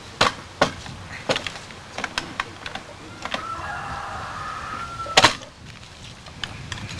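Sharp clicks and knocks of a gun sling and its hardware being handled, about half a dozen spread through, the loudest about five seconds in. A faint wavering whine runs underneath for a second or two in the middle.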